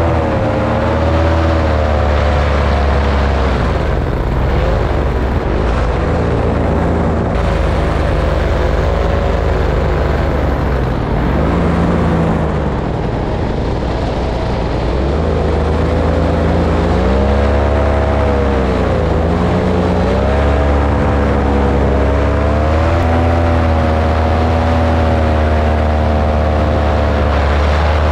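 Paramotor engine and propeller running in flight, the engine's pitch rising and falling again and again as the throttle is worked, with several deep dips in revs.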